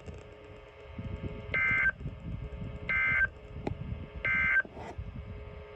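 EAS end-of-message (EOM) digital data bursts from a NOAA Weather Radio broadcast: three short, identical two-tone warbling bursts about 1.3 s apart, closing the required weekly test. A low rumble of background noise runs underneath.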